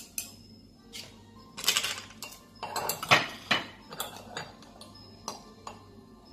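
Metal spoon and knife scraping and clinking against a cut-glass bowl and scallop shells while scooping and spreading a soft butter and cheese mixture, with runs of scrapes and clinks about two and three seconds in.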